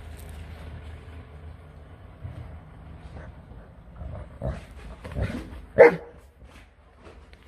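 Saint Bernard play-barking: a few short, softer barks, then one loud bark about six seconds in.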